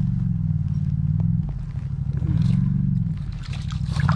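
A steady low motor hum that swells and fades, with scattered light scrapes and taps from a tullibee flopping on the ice as it is grabbed.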